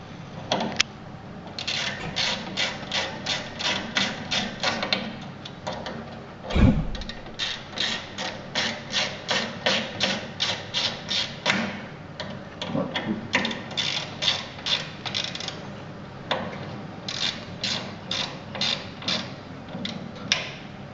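Hand ratchet clicking in runs of about three clicks a second as a screw is driven into the metal door frame, with pauses between the runs and one low thump about six and a half seconds in.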